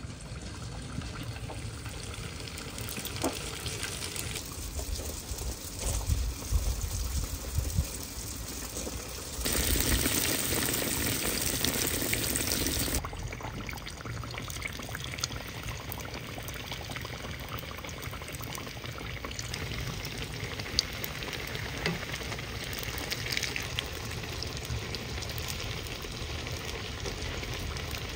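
Piroshki frying in a pan of hot oil, the oil bubbling and sizzling around the dough. The sizzling gets louder for about three seconds near the middle, with a few faint knocks.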